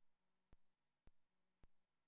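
Near silence, with faint, evenly spaced clicks a little under two a second, four in all.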